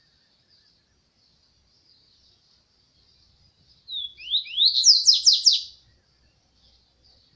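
A papa-capim seedeater sings one short phrase about four seconds in: a brief note, then a quick run of about six rising, sweeping high notes. A faint steady high hiss runs underneath.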